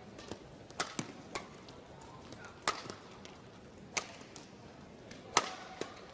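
Badminton rally: sharp racket strikes on the shuttlecock, four loud hits about every second and a half, with a few fainter clicks between them, over the low hum of the hall.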